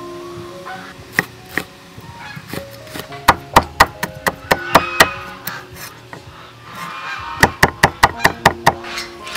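Kitchen knife chopping red chilies on a wooden cutting board: two quick runs of sharp knocks, several a second, the first about three seconds in and the second near the end.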